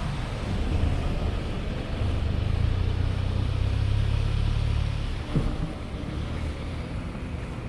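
Street traffic: the low rumble of a passing motor vehicle swells for a few seconds and then eases off, with a single short knock about five seconds in.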